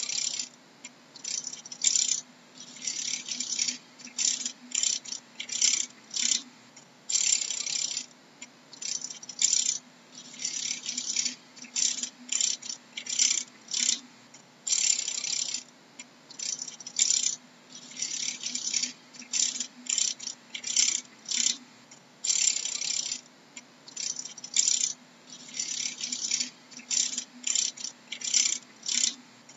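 Dragonfly wings clattering: dry, high rasping rattles in short irregular bursts, one or two a second, over a faint steady low hum.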